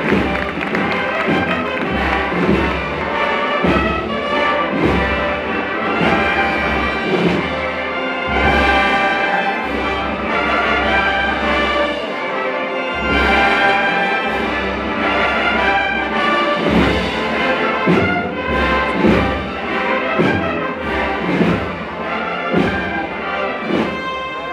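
Brass band playing a processional march, with a deep drum beat keeping time about once a second.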